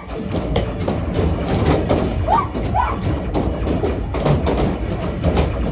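Laser tag arena din: a loud, steady bass-heavy rumble with many thuds and clicks, and two short rising squeaks about two and a half seconds in.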